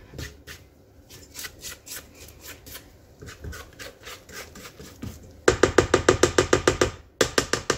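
Spatula scraping creamed butter and sugar off a stand mixer's stainless steel bowl and flat beater: soft scraping and light clicks, then, about two-thirds of the way through, a loud, fast clatter of about ten knocks a second.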